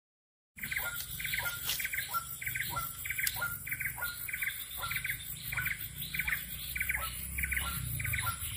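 A bird calling over and over, short calls about two a second, starting about half a second in.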